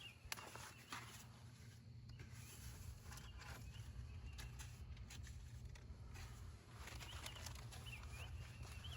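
Quiet outdoor ambience: a low steady rumble with a few faint bird chirps and occasional small clicks.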